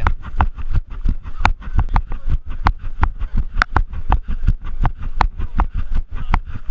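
Footfalls of a person running, a steady thud at about three strides a second.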